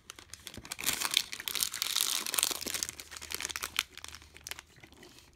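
Foil-lined chocolate bar wrapper crinkling and rustling as it is handled, busiest in the first half and dying away near the end.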